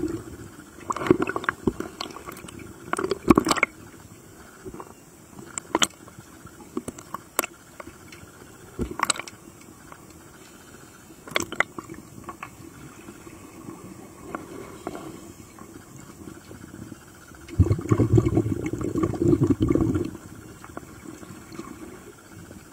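Water sounds from underwater footage: scattered sharp clicks and taps, then a louder bubbling rush lasting about two seconds near the end.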